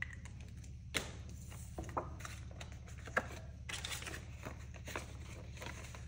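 Paper banknotes being handled and slipped into a cash envelope: light rustling and crinkling with a few sharp clicks, over a steady low hum.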